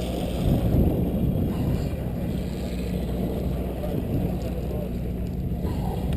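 Sportfishing boat's engine running with a steady low drone, with a brief louder rumble about half a second in.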